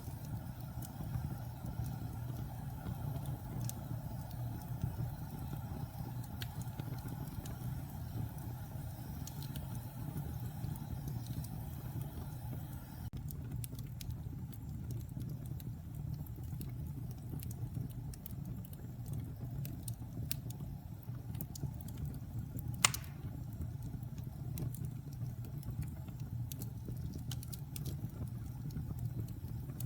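Wood fire burning: a steady low rumble of flames with scattered small crackles and one loud sharp pop about three quarters of the way through.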